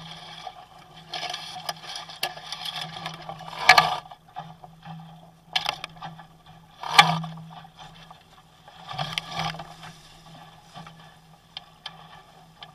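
Water splashing and rushing against a Sunfish sailboat's hull as the boat tacks, with several sharp knocks and splashes about two seconds apart. A steady low hum runs underneath.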